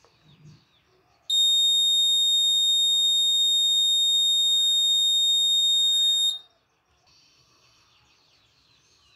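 Piezo buzzer of an Arduino school-bell timer sounding one continuous high-pitched beep for about five seconds, starting about a second in and cutting off sharply: the fifth scheduled school bell going off at its set time.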